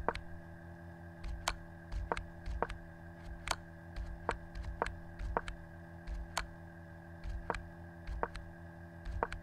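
Irregular sharp clicks, one or two a second, over a steady electrical hum: clicking through chess moves on a computer, the position advancing with each move.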